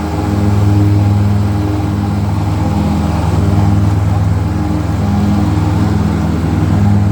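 Kubota GR2120 mower's diesel engine running steadily at working speed, with a slight regular swell and fade in its tone.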